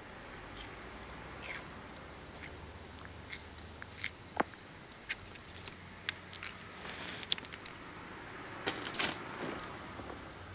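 Russian tortoise biting and chewing bean sprouts: irregular sharp clicks and small crunches from its beak, a quick run of them near the end.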